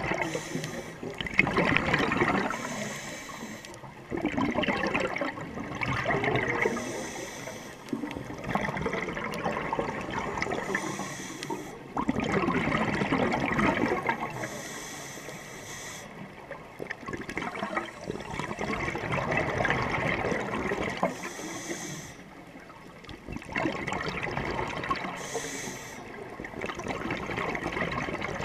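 Scuba regulator breathing underwater: exhaled air bubbling and gurgling out in surges every few seconds, with short hisses of inhaled air between them.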